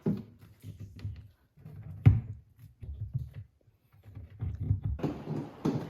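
Handling knocks and low thumps from fitting and plugging in a soundbar's parts, with one sharp knock about two seconds in.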